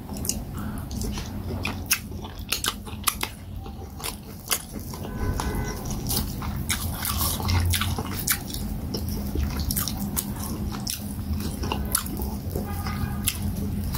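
Close-miked chewing and lip-smacking while eating fufu and peanut soup by hand: many sharp, irregular wet clicks and smacks.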